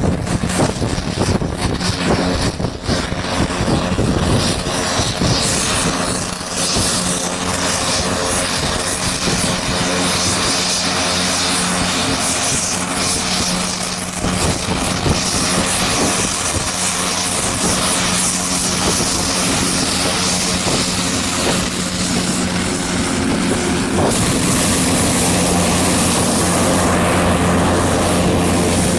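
MQ-9B SkyGuardian's Honeywell TPE331 turboprop engine and propeller running steadily, a continuous drone with a steady low hum. The sound shifts slightly and grows a little louder about five seconds before the end.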